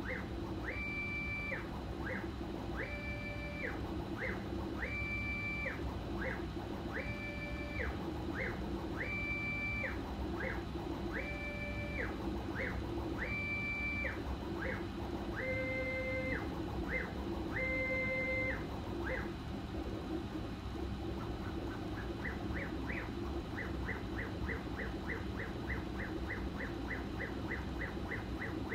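HevORT CoreXY 3D printer's stepper motors singing as the print head moves while printing ABS. For the first two-thirds, each long move is a whine that rises to a held high pitch and falls away, about one a second, with short chirps between. Then come short chirps climbing in pitch and a fast run of about four brief chirps a second, over a steady low hum of fans and motion.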